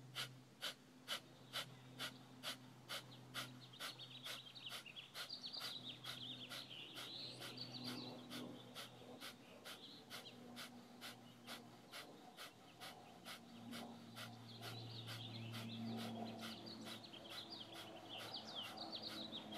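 Kapalabhati (skull-shining) yoga breath: a steady run of short, sharp, forced exhales pumped out by the diaphragm, about two and a half a second. Together they make up a round of about fifty.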